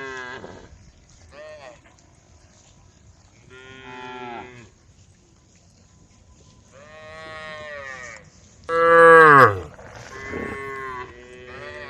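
A group of cows mooing, about six separate calls in turn, each lasting up to a second or so. The loudest call comes about nine seconds in and drops in pitch at its end.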